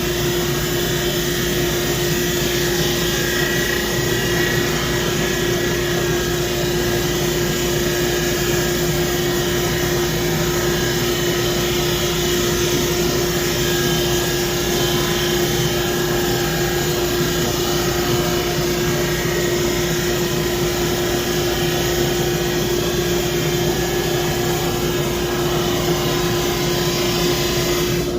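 SuperMax 25-50 drum sander running steadily: a constant motor hum over an even rushing hiss, unchanging throughout.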